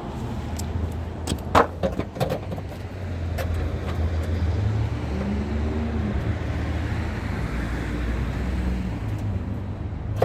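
Steady low hum of motor-vehicle noise, with a quick cluster of sharp metallic clicks and knocks about a second and a half in as parts are handled at the tailgate latch.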